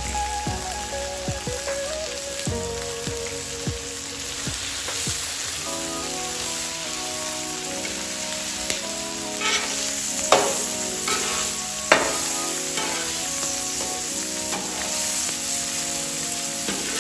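Bacon, sausage patties and smoked sausage sizzling steadily on a steel Blackstone flat-top griddle. Around the middle, a metal spatula scraping and tapping the griddle gives a few sharp clicks as the patties are flipped.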